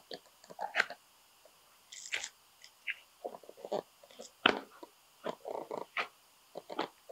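Utility knife slicing through chrome-tanned leather, trimming excess off an upholstered seat: a run of short, irregular crunching cuts.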